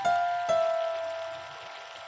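Background music: two plucked notes, the second a little lower and about half a second after the first, left to ring and fade.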